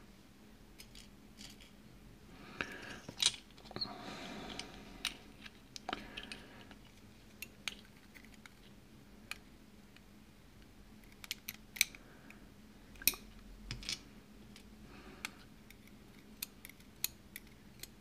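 Fine steel tweezers clicking and scraping against a brass lock cylinder as driver pins and springs are picked out of its pin chambers, a scatter of faint, irregular metallic ticks with a few soft handling rustles.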